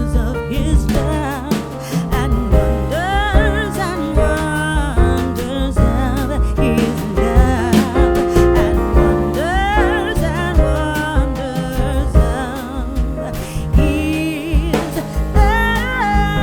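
Background music with a steady beat and a wavering melody line, singing-like.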